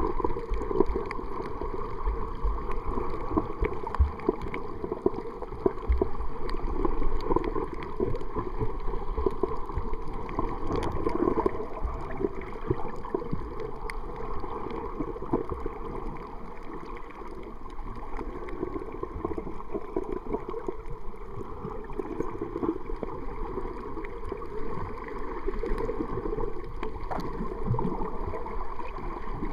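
Underwater sound over a shallow coral reef: a steady wash of water noise with many small scattered clicks.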